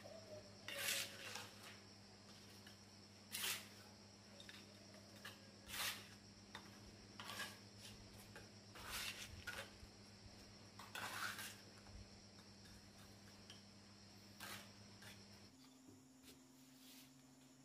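Steel trowel scraping and tapping on wet mortar and red bricks during bricklaying: about seven short scrapes and clinks a couple of seconds apart, over a faint steady hum.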